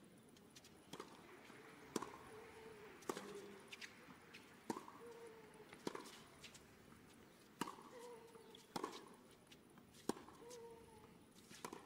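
Tennis rally on a hard court: a tennis ball struck back and forth by racket strings, a sharp pop roughly every one to one and a half seconds. Several strokes are followed by a short grunt from the player hitting.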